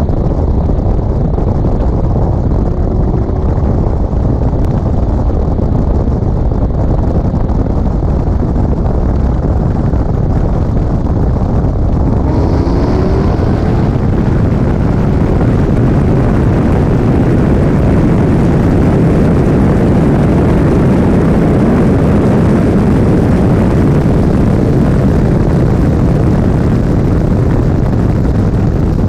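A car accelerating hard from about 40 mph to past 100 mph: loud, steady engine and wind rumble with no let-up. A faint rising tone comes in about halfway through.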